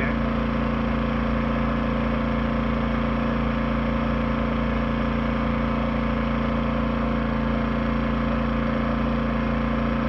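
Yamaha EF2000iS inverter generator running at a raised, steady engine speed in eco mode, taking the starting load of a 13,500 BTU air conditioner as its soft start brings on the compressor. The owner reports that the generator could not start the compressor through the soft start module.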